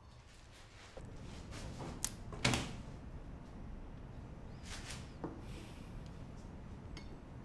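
A few short, sharp knocks over a faint steady background hum, the loudest about two and a half seconds in and another near five seconds.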